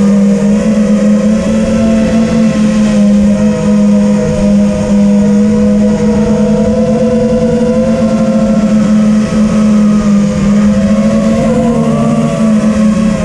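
Brushless motors and propellers of a TBS Vendetta racing quadcopter running in flight, a loud steady multi-tone whine that wavers slightly in pitch as the throttle shifts, with a brief dip near the end.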